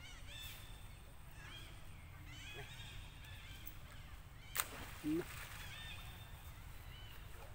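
Animal calls: short, high chirps in quick little groups, over a steady low rumble, with a sharp click about four and a half seconds in and a short low sound just after.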